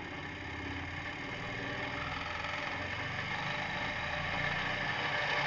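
Electric motor spinning a vinyl record at high speed: a steady mechanical whir that grows slowly louder as the power is brought up.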